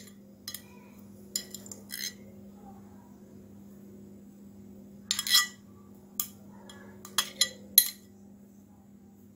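Knife clinking and tapping against a metal baking tray in irregular clicks while small pieces of butter are set on the batter, over a steady low hum.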